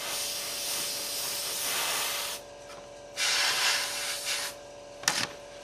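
Airbrush spraying black paint in two bursts of hiss, the first about two seconds long and the second about a second and a half, followed by a single sharp click near the end.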